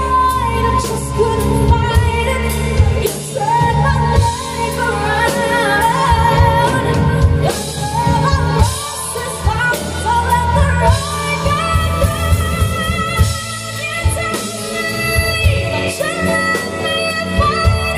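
A woman singing live into a microphone over a band, with drums and bass behind her; her voice climbs and holds long notes with vibrato.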